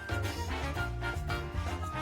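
Upbeat, playful background music with a bouncing bass line and short, plucked-sounding notes.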